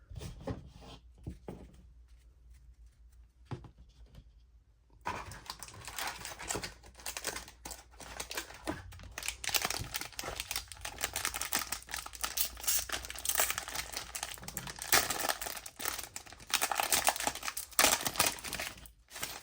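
A few faint handling clicks, then from about five seconds in a trading-card pack's plastic wrapper being torn open and crinkled, crackling almost without a break until near the end.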